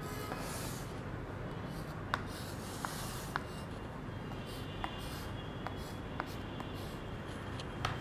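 Chalk scratching across a small writing slate in short strokes as lines are drawn, with a few sharp ticks of the chalk against the slate.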